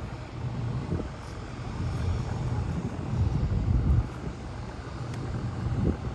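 Wind buffeting the microphone over a low, steady rumble, swelling in gusts about a second in, around three to four seconds in, and near the end.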